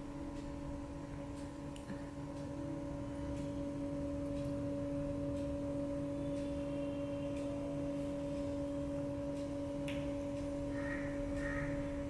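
A steady low hum with a clear overtone, with a few faint light clicks of a small spoon against a miniature steel pressure cooker and cup.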